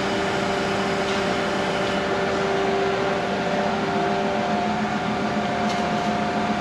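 Forklift running while its mast hydraulics are worked from the control levers: a steady mechanical hum with several held tones, and a higher tone joins about four seconds in.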